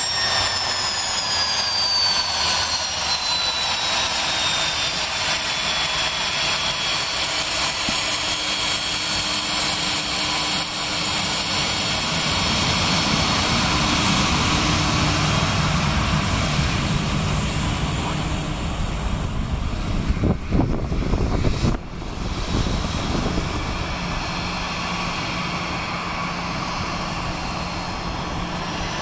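Cessna 560XL Citation XLS+ business jet's twin turbofan engines running at taxi power: a steady jet whine whose high tones fall in pitch over the first few seconds. About 22 seconds in the sound changes abruptly to a steadier, lower engine drone.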